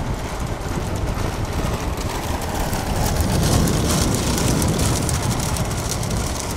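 Bullock racing cart pulled by a pair of galloping bulls on asphalt: a rapid patter of hooves mixed with the rolling of the cart's spoked wheels, swelling louder as it passes close about three to five seconds in.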